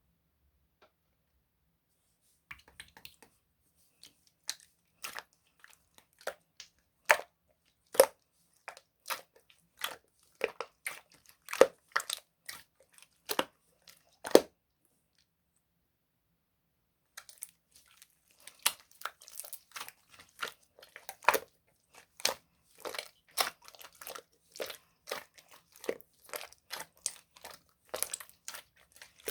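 Clear slime being pressed and folded by hand, making sharp popping clicks as trapped air bursts. The pops come about one a second at first, stop for a few seconds, then return quicker and denser.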